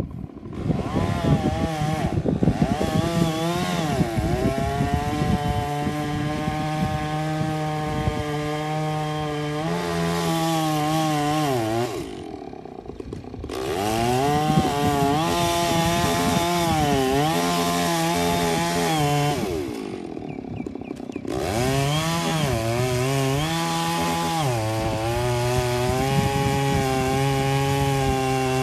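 Chainsaw running at high revs and cutting wood, easing off twice to lower revs before revving up again.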